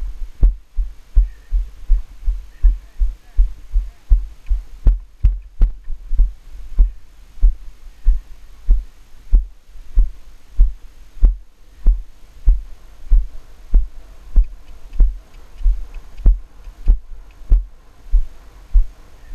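A ridden horse's strides picked up by a helmet-mounted GoPro: a steady rhythm of dull, low thumps about twice a second as each stride jolts the rider and camera, with sharper hoof strikes in the arena sand.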